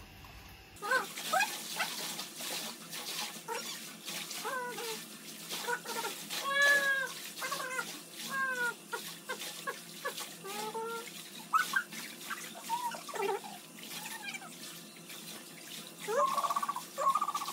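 Water splashing and lapping in a small pool, with many short, high chirping calls over it throughout.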